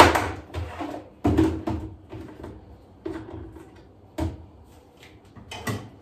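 Plastic food storage containers knocking and clattering as they are moved and stacked on a kitchen cabinet shelf: a string of separate knocks, the loudest at the very start, then a few more spread through the rest.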